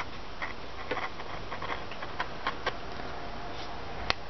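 X-Acto hobby knife blade scoring through masking tape layered on cardboard: a string of small, irregular scratchy ticks, the sharpest one near the end.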